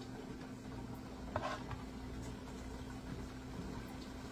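Quiet kitchen with a steady low hum and a soft scrape of a plastic ladle against a canning funnel about a second and a half in, as berry pie filling is ladled into jars.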